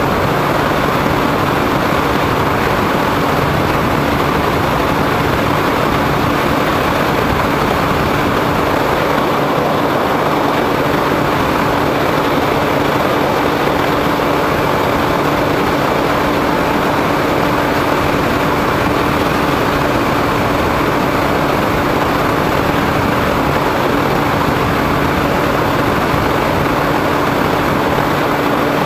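RC plane's motor and propeller running at a steady pitch in flight, heard through the onboard camera's microphone with rushing wind.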